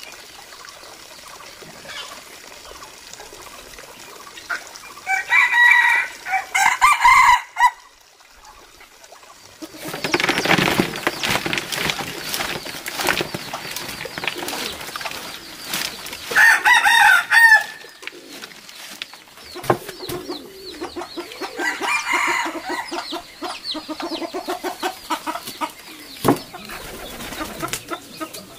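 Farmyard chickens: roosters crowing several times, with hens clucking in between. There is also a stretch of rustling noise about ten seconds in.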